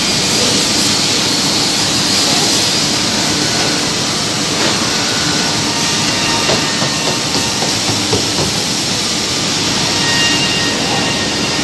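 Anderson PTP-5013 CNC drilling machining center at work, drilling cam-fitting holes in a wood panel. A steady, loud rushing machine noise, with a few faint clicks and knocks in the middle.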